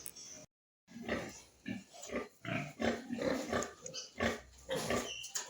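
Pigs grunting in a run of short, irregular grunts, after a brief break to total silence about half a second in.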